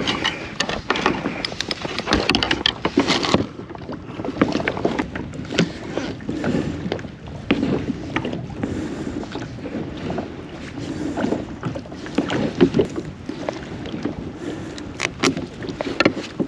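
Irregular knocks, clicks and rustling of gear being handled on a kayak.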